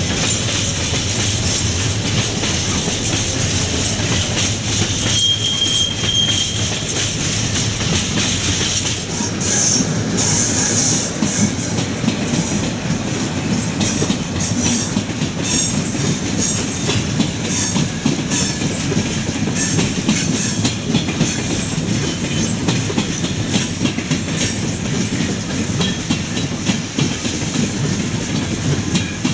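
Train rolling past, its wheels clicking steadily over rail joints, with a brief high wheel squeal about five seconds in.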